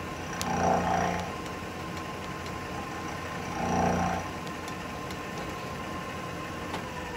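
Milling machine spindle running a carbide end mill that has a couple of damaged flutes, cutting a V slot with a steady whine. It cuts louder and rougher in two short bursts, about a second in and about four seconds in. Near the end the spindle is switched off and its whine starts to fall in pitch as it winds down.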